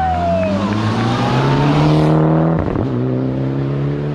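Rally car accelerating hard, its engine pitch climbing, dropping sharply at an upshift about two and a half seconds in, then climbing again.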